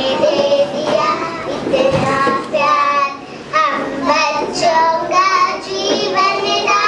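Several young children singing together into a microphone, in phrases with short breaks between them.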